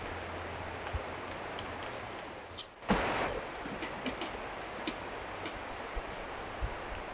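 Trail-camera outdoor sound: a steady hiss, broken about three seconds in by a short dip and a brief loud burst. After it come scattered small clicks and ticks.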